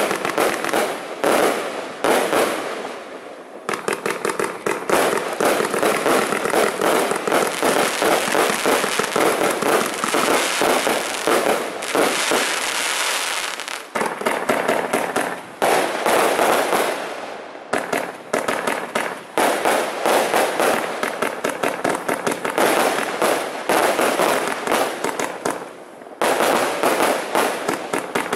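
Nico 'Free the Beast' 144-shot firework compound cake with 25 mm tubes firing: a rapid, dense stream of launch thumps and bursts popping and crackling overhead, broken by a few short lulls between sequences.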